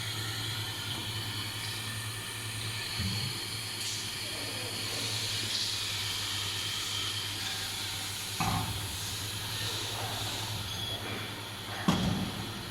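Steady hiss over a low, even hum, broken by a knock about eight and a half seconds in and a louder clunk near the end.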